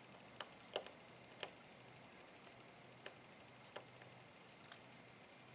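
Faint, scattered light clicks, about six in all, of tiny screws and small repair tools touching the iPhone 4S's internal metal parts as the screws are put back in.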